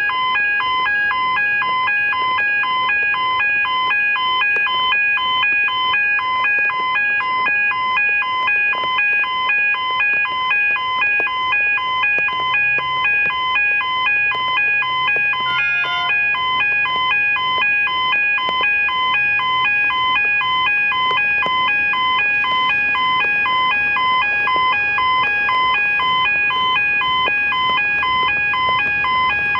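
Electronic railway level crossing bell ringing in rapid, even strokes, warning of an approaching train.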